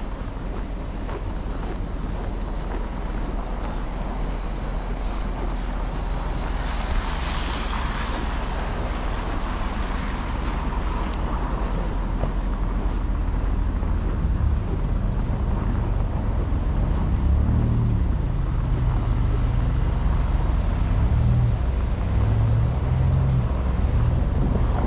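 Wind buffeting the microphone over steady city street traffic in a snowstorm. A vehicle passes with a rising and falling hiss about seven to ten seconds in. Heavier low rumbling gusts come in the second half.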